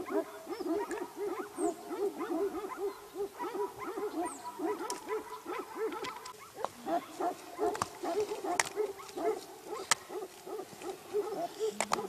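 An animal calling in a fast run of short hooting, yelping calls, about four a second, with a brief pause past the middle; a few sharp clicks and faint bird chirps sound over it.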